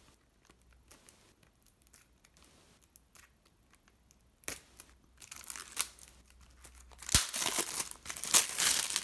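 Plastic shrink-wrap being torn and crinkled off a CD jewel case: faint ticks at first, then crackling from about four and a half seconds in, loudest near the end, with a sharp click a little after seven seconds.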